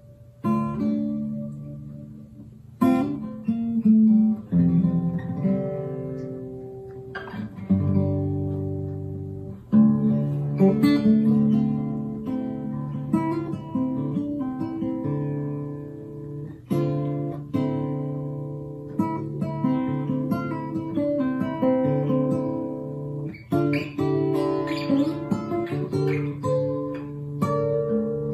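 Acoustic guitar music: plucked and strummed chords that keep changing.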